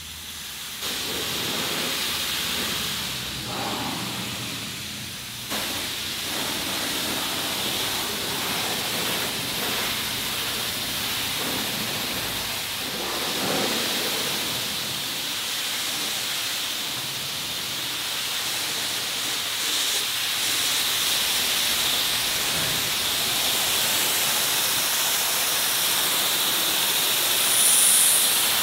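Car-wash jet hose spraying high-pressure water onto a pickup truck to rinse off the dirt: a steady hiss that starts about a second in.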